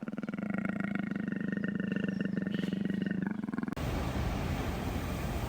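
A big cat's low, steady rumbling vocalization, cut off suddenly about two-thirds of the way through, followed by wind buffeting the microphone.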